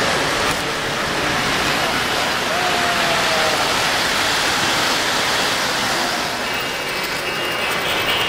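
Steady rushing rumble of O-gauge model trains rolling over three-rail track, with faint high steady tones joining near the end.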